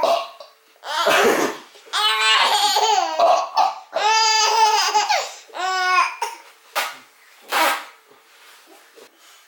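A baby laughing hysterically in repeated high-pitched bursts, most of them between about two and five seconds in. Short rough bursts come between the laughs, one about a second in and another near the end.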